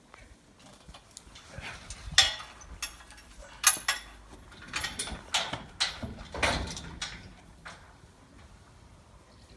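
Scaffold parts being handled and fitted, with knocks and scrapes and a few sharp metal clanks, the loudest about two and four seconds in.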